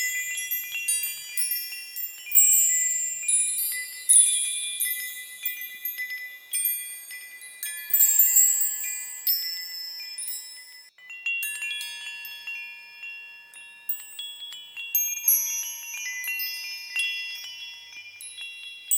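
Small high-pitched bells ringing in a random, overlapping tinkle, like wind chimes, each note ringing on after it is struck. There is a short lull about eleven seconds in before the ringing picks up again.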